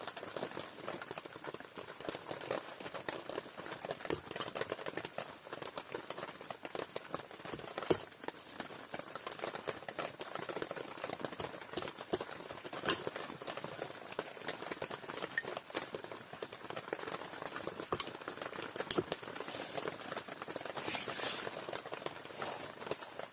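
Small wood fire crackling, with a few sharp pops.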